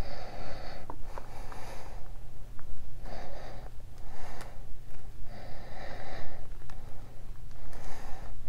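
Breathing through the nose close to the microphone, a breath every two to three seconds, with a few light clicks as a soft vinyl toy figure is handled. A steady low hum runs underneath.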